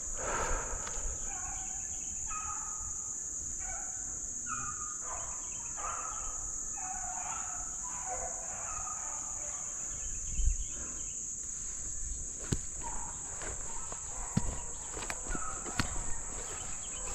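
A pack of rabbit hounds baying in the distance on a running rabbit, many short voices overlapping, over a steady high drone of insects. A few sharp clicks near the end.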